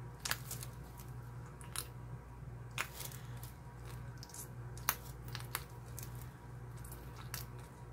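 Scattered light clicks and taps from gloved hands handling craft supplies at a resin work table, over a steady low hum.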